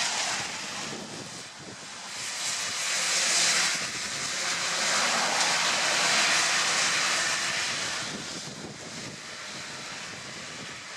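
Traffic passing on a wet road: tyres hissing through surface water as cars and a red double-decker bus go by close, with a low engine rumble underneath. The hiss swells about two seconds in, stays loud through the middle and fades after about eight seconds.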